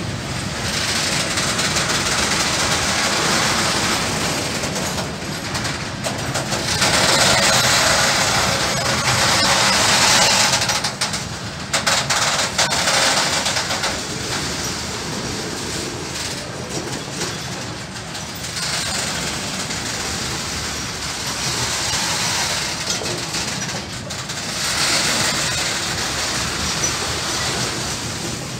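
Freight train of covered sliding-wall wagons rolling past at close range: a steady rumble of wheels on rail that swells louder a few times as wagons go by.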